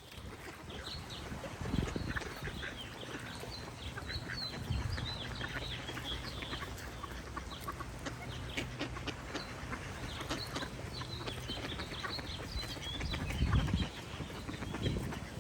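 Ducks quacking now and then over a chorus of small songbirds chirping high and quick throughout.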